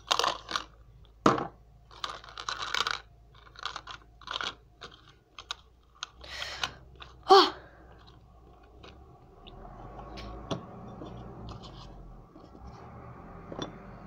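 Small glass cups and plastic containers and lids being picked up, set down and fitted together on a tabletop: scattered clicks, taps and light clatter. A short vocal sound about seven seconds in, and a faint steady hum in the second half.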